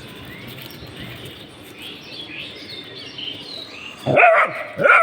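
A dog barking in high-pitched yips, two short bursts starting about four seconds in.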